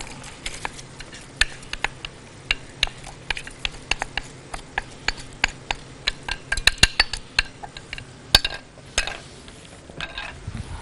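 A spoon stirring rice and vermicelli in a metal cooking pot, with quick, irregular clinks and scrapes against the pot as the grains toast in vegetable ghee.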